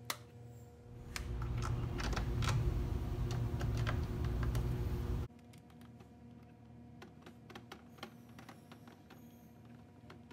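Plastic clicking and rattling as the cover of a 1998 Toyota Avalon instrument cluster is handled and snapped onto its tabs. The handling noise stops suddenly about five seconds in, leaving only faint, scattered light ticks.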